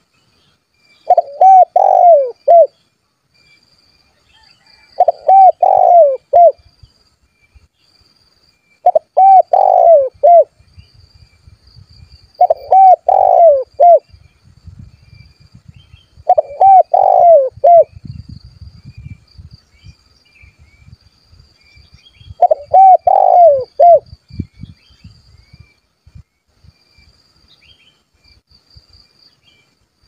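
Spotted dove cooing: six phrases of several low, hooting notes, about one every four seconds, with a gap of about six seconds before the last. A faint, steady high insect trill runs underneath.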